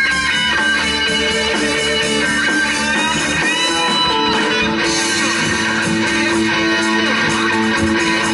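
Live instrumental music from a guitar, bass and drums trio: the guitar holds long notes with some sliding pitches over a steady bass and drums.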